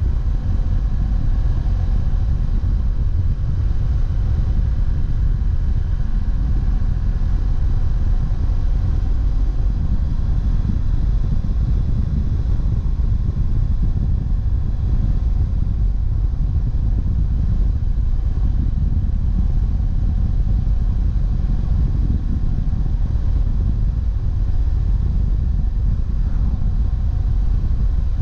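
BMW F700GS's parallel-twin engine running at a steady cruising pace, under heavy wind rumble on the camera's microphone.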